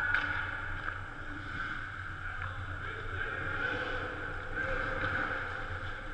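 Steady hum and echoing background noise of an indoor ice arena, with a few faint far-off clicks from the play at the other end of the ice.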